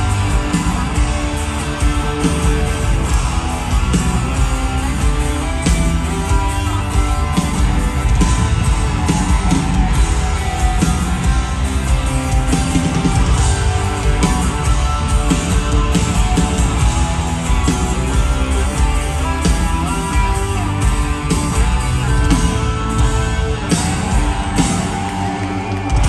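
Rock band playing live in an arena: electric guitars, keyboards and drums, heard from among the audience.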